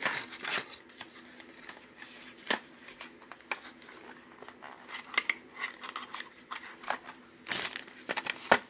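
Cardboard product box and clear plastic wrapping being handled and opened by hand: scattered clicks, taps and rustles. A louder burst of plastic rustling comes near the end.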